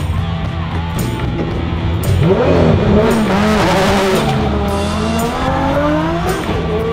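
Background music with a steady beat, over a drift car's engine. From about two seconds in, the engine revs up and down.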